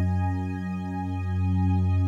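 Background music: soft synthesizer chords with held notes that change every half second or so.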